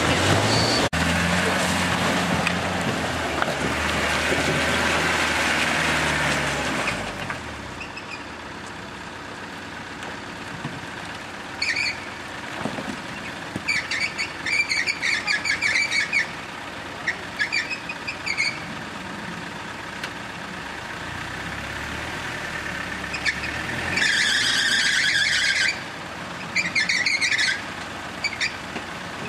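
Land Rover 4x4 engine labouring under load on an off-road climb for the first several seconds, then a quieter engine running slowly, broken by repeated short high-pitched squeals as a Land Rover Defender 110 crawls through mud.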